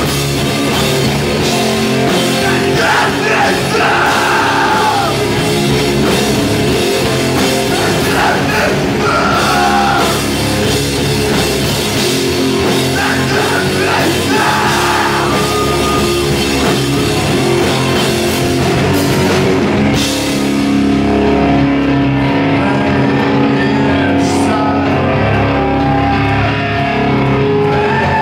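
Live rock band playing loud: bass guitar, electric guitar and drum kit, with vocals. About two-thirds of the way through the sound thins out, leaving long held notes.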